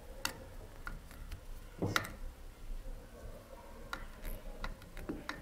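Irregular small metallic clicks and ticks of a screwdriver tightening the screws that hold a fan grill and 40 mm fan to a hotend heat sink, with one louder knock about two seconds in.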